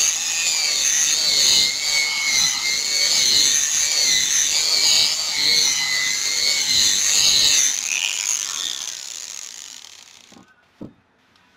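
Small electric rotary sander with a hook-and-loop sanding pad running against a plastic motorcycle headlight lens, a steady high whine with a slightly wavering pitch. It winds down and stops about eight seconds in, followed by a single click near the end.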